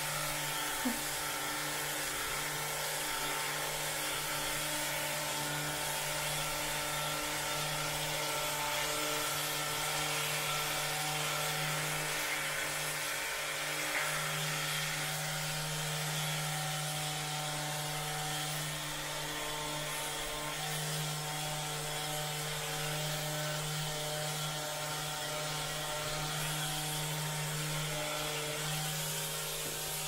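Handheld percussion massage gun running with a steady motor buzz, pressed against a person's upper back and neck.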